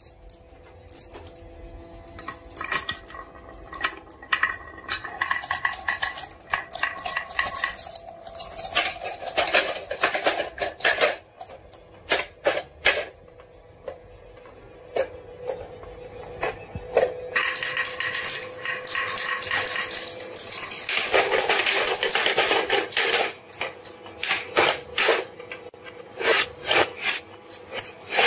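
Marbles rolling and clattering down a wooden marble run, with many quick clicks as they drop and hit the track, and a stretch of continuous rolling rumble in the second half.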